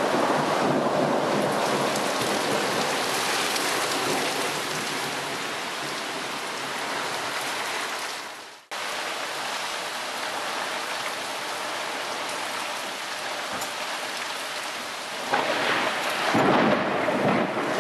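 Heavy thunderstorm rain falling on paving and grass, with thunder rumbling. The sound drops out briefly about halfway through, and a louder, deeper surge comes near the end.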